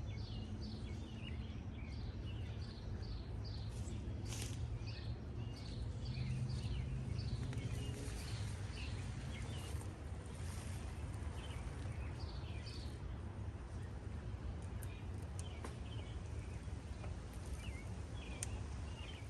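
Songbirds chirping in quick repeated notes over a steady low outdoor rumble, with a few faint sharp clicks.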